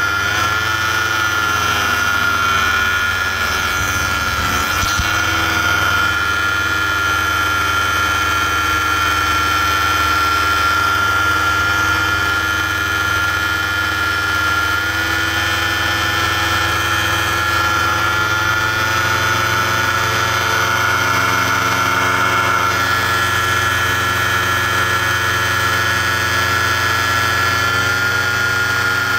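Paramotor engine and propeller running steadily in flight, dipping briefly in pitch about half a second in and again around four to five seconds in, then holding a steady note.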